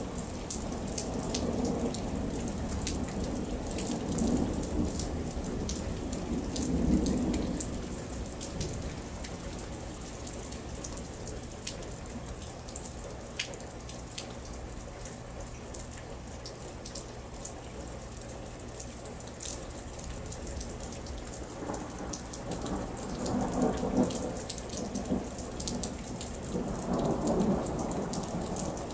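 Steady rain during a thunderstorm, with close drops ticking on nearby surfaces. Thunder rumbles through the first several seconds, swelling about seven seconds in, fades, then rumbles again over the last several seconds.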